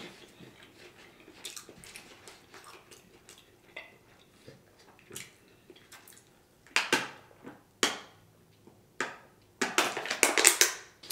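Thin plastic water bottle crinkling and crackling in the hand as someone drinks from it, with faint clicks at first and a few louder crackles in the second half.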